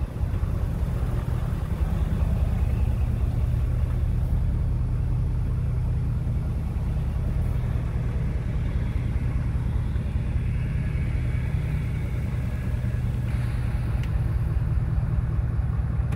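Pickup truck moving slowly, heard from inside the cab: a steady low drone of engine and road noise.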